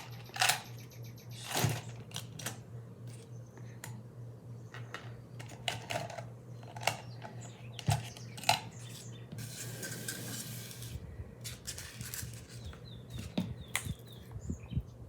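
Metal snap-button jewelry being handled: scattered light clicks and clinks of small metal pieces knocking together and against a container, with a brief rustle about ten seconds in.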